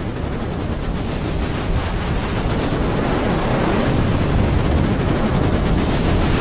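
Steady road and wind noise of a moving car, slowly growing louder.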